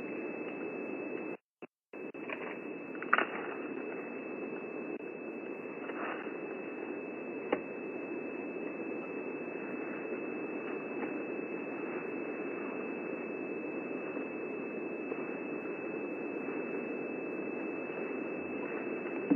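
Radio receiver hissing with steady static, picking up no signal. It cuts out briefly about a second and a half in, with a few faint clicks.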